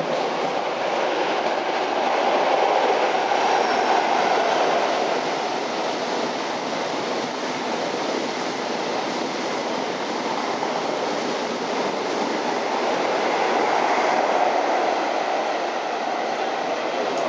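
InterCity 125 High Speed Train with Class 43 power cars passing at speed: a steady rush and rumble of wheels on rail. It swells about two seconds in and again near the end.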